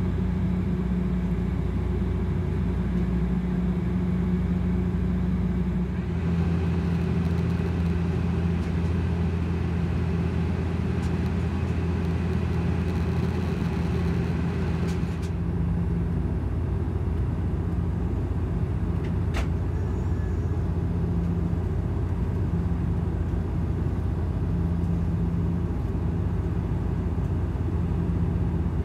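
Steady cabin drone of a Bombardier Q400's Pratt & Whitney PW150A turboprops and six-blade propellers, a deep even hum. A faint hiss joins about six seconds in and stops about halfway through, and there is a single click a few seconds later.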